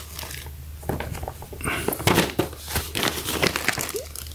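Plastic bags crinkling and rustling as a beanie in a clear plastic sleeve is slid out of a thin plastic shopping bag: irregular crackles, starting about a second in.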